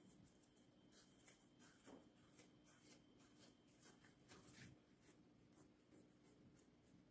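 Very faint rustling and light scraping of hands rolling and pressing soft yeast dough into a loaf on a floured silicone baking mat, a run of short brushing strokes from about a second in, over a faint steady hum.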